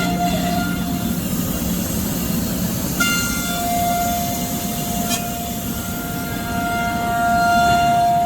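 CNC router spindle running with a steady high whine over a noisy rumble. The whine drops out briefly about three seconds in and comes back, with a click and later a short sharp tick.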